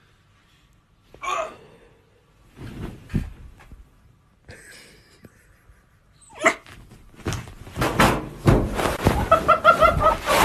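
Husky puppy calling: a short gliding whine about a second in and another sharp cry partway through. Near the end come loud scuffling and a rapid run of short yips as it scrambles on the bed.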